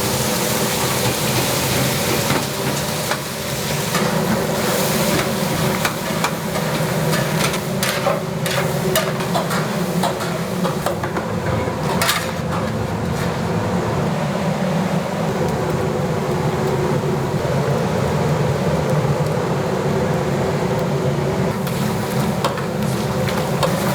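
Commercial kitchen at work: a steady hum of equipment under a noisy hiss, with scattered clicks and knocks of utensils and containers, most of them in the middle stretch.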